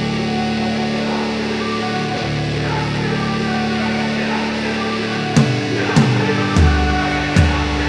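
Instrumental rock music with guitar: sustained chords at first, then drum hits and heavy bass come in about five seconds in.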